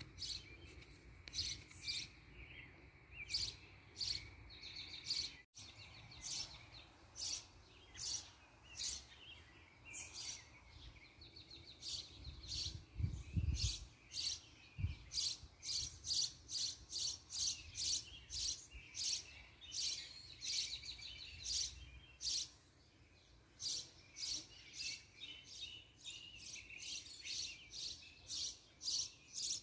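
Birds chirping: short, high, sharp calls repeated about once or twice a second, some of them trilled.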